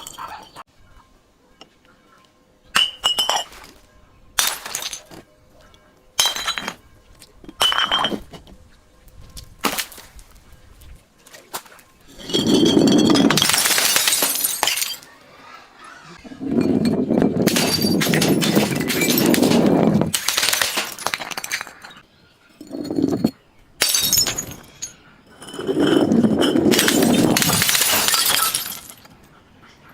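Glass bottles being broken: first a few separate sharp cracks with a brief glassy ring, then several long stretches of loud crunching and shattering glass lasting a few seconds each.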